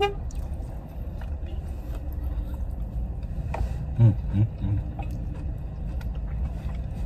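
Low steady rumble of a car idling, heard inside its cabin, with the small rustles and clicks of people eating. A couple of short low voiced sounds come about four seconds in.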